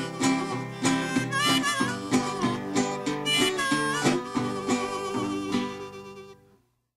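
Delta blues harmonica playing bent notes over a rhythmically picked guitar, the closing bars of the song; the music winds down and stops about six and a half seconds in.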